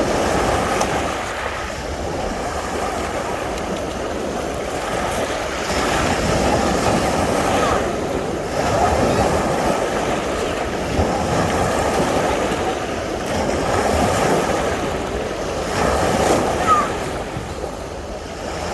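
Sea surf washing onto a beach: a continuous noisy rush of waves that swells and eases every few seconds.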